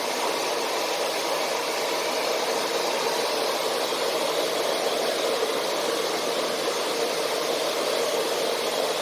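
Hair dryer running steadily, pushing air through a homemade mask made from a plastic cup and bottle strapped to its nozzle. This is the test run of a makeshift ventilator.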